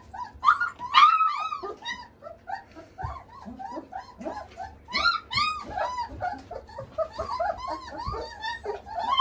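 A litter of three-week-old Romanian Mioritic Shepherd puppies whining and yelping at feeding time: many short cries that rise and fall, several voices overlapping, loudest about a second in and again around five seconds in.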